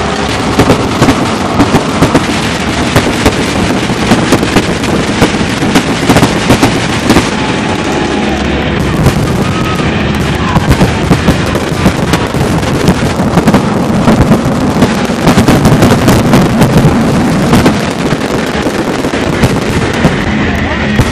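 Pyrotechnics going off at a stadium show: many sharp bangs and crackling reports in quick succession over a constant loud din.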